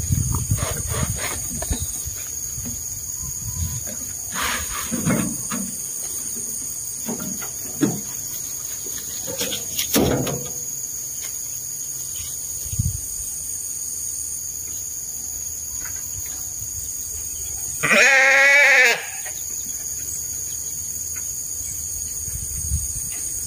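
A sheep bleats once, loudly, for about a second, its voice wavering. Earlier there are scattered thuds and rustling as a wheelbarrow load of dung is tipped out and the barrow is moved.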